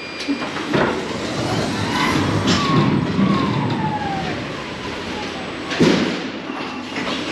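Electric pallet truck driving over a trailer's floor: a steady rumbling rattle with a thin motor whine that falls in pitch a couple of seconds in, and sharp knocks, the loudest about six seconds in.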